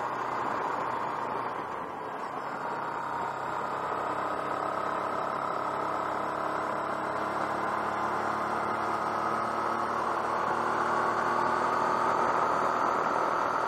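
Honda NT700V touring motorcycle's V-twin engine running at road speed with wind rush, heard from a camera mounted on the bike. The engine note and loudness rise slowly as the bike accelerates up the road.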